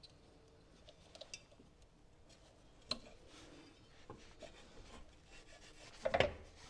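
Lawnmower PTO clutch being fitted onto its shaft and turned by hand to line up with its bracket: faint metal rubbing and small clicks, a sharp knock about three seconds in, and a louder scrape and clunk near the end.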